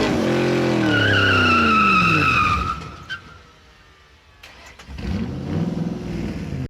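Car engine revving up and back down with a high tire squeal over it, then a shorter second rev near the end.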